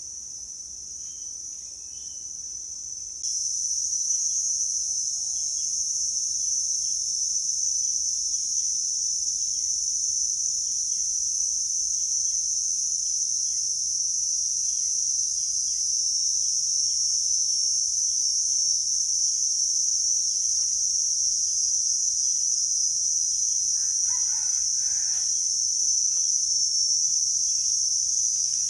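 Steady, high-pitched chorus of insects such as crickets or cicadas, which gets louder about three seconds in. Near the end a rooster crows once, briefly.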